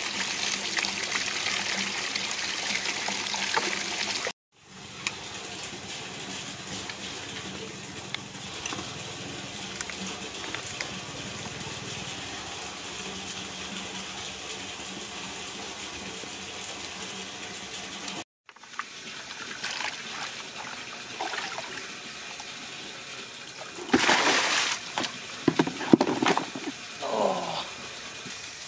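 Running water splashing over a raw beef head as it is rinsed by hand. After a cut, a lower, steady hiss, and near the end a few loud knocks and scrapes.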